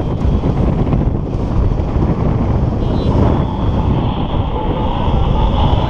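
Wind rushing and buffeting over the microphone of a paraglider in flight, loud and steady. About halfway through, and again near the end, a few short high electronic beeps come through the wind.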